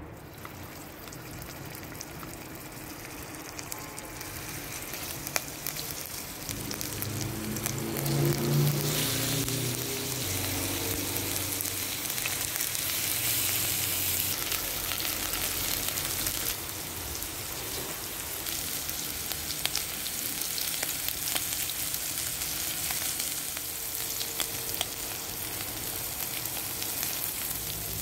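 Beef short ribs frying in a little oil in an enamelled pot: a steady sizzle with scattered small crackles, growing louder about eight seconds in.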